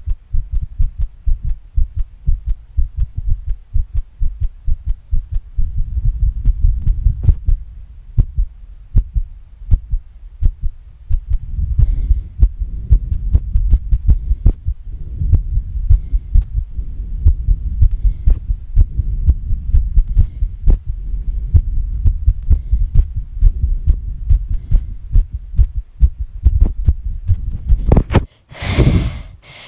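Fast human heartbeat: a steady quick run of deep low thumps, with faint breaths every couple of seconds. Near the end a loud, heavy breath cuts over the beats.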